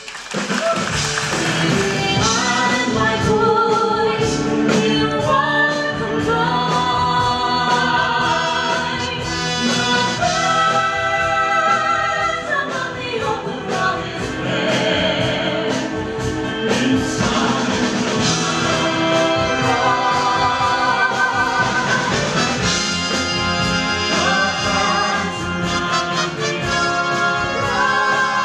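Live stage-show singing: vocalists with handheld microphones singing over musical accompaniment, amplified through the theatre's sound system. A new number starts right after a brief drop in level at the start.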